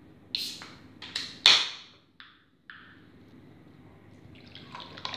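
A ring-pull on a soda can clicks a couple of times and then pops open with a sharp hiss of escaping gas about a second and a half in. Near the end, carbonated orange soda pours into a glass and fizzes with a crackle of bursting bubbles.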